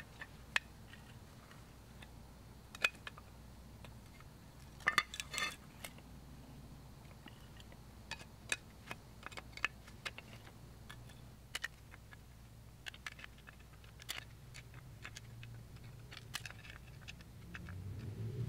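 Small sharp metal clicks and clinks as needle-nose pliers work the pin and retaining clip on a drum brake shoe's parking brake arm, coming irregularly with a short cluster about five seconds in. A faint low hum underneath swells near the end.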